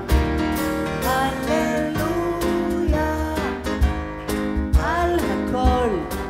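Live band playing an instrumental passage of a song, with a steady low beat under sharply struck notes and a melody that slides between pitches.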